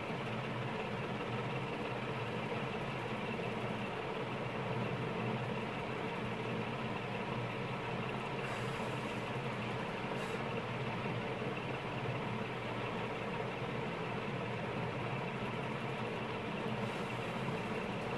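A steady hum with hiss, even in level throughout, with no distinct knocks or clicks.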